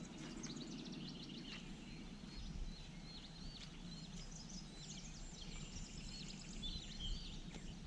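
Small birds chirping and twittering over and over, over a low, steady outdoor background noise.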